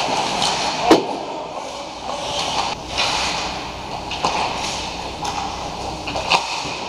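Ice hockey skates scraping and carving on the ice in short surges. A sharp knock of stick and puck comes about a second in, and another near the end.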